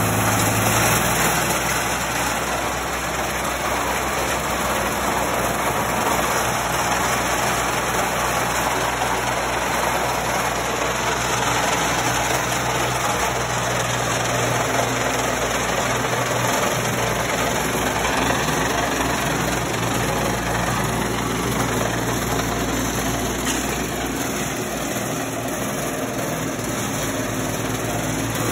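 Mobile vibrating screen sifting railway ballast, with stones rattling across the perforated screen deck and a mini excavator's diesel engine running steadily.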